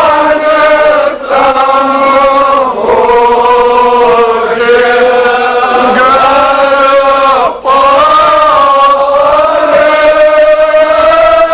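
A crowd of men chanting together in long, drawn-out phrases, with brief breaks for breath about a second in and again near eight seconds.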